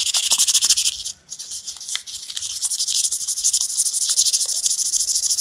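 600-grit sandpaper rubbed by hand over a small piece of wood, a fast, even rasping hiss of quick back-and-forth strokes with a short pause about a second in. It is the fine smoothing stage of sanding the body of a homemade wooden quail call.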